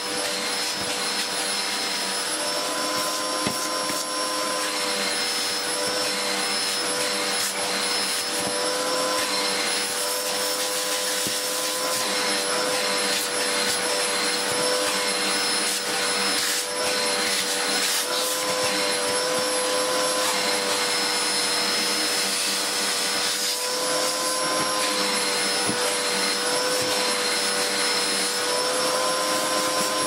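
Dyson DC04 vacuum cleaner running steadily while its brush tool is worked over a dirty fabric filter, with a steady motor whine that wavers slightly in pitch.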